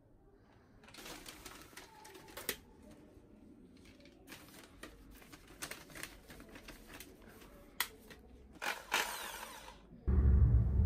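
Handling noises: scattered clicks and short rustling spells of paper and tape being worked by hand. About ten seconds in, a loud, steady low rumble starts abruptly and becomes the loudest sound.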